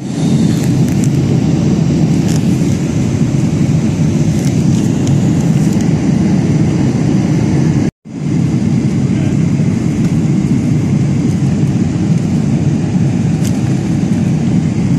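Steady low roar of airliner cabin noise in flight, with a few faint light clicks of handling at the tray table. The sound cuts out for an instant about eight seconds in.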